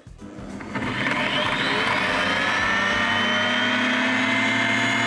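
Witt MyCook Touch multicooker's blade motor chopping garlic: it winds up over about the first second, then runs steadily at high speed with a whine that creeps slightly higher in pitch.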